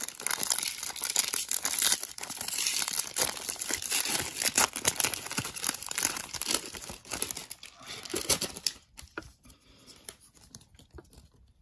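Foil Magic: The Gathering booster pack wrapper being torn open and crinkled by hand: dense crackling for about eight and a half seconds. After that it is much quieter, with faint clicks as the cards are pulled out and handled.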